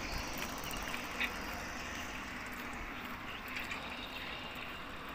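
Faint, steady outdoor background noise, an even hiss without distinct events, with one soft tap about a second in.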